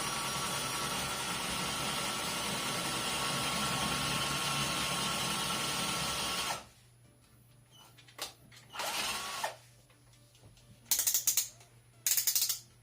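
Philco Force PPF02MF cordless drill/driver running steadily as it bores into a brick wall with a bit not made for masonry. It stops suddenly about six and a half seconds in, and then runs again in several short bursts.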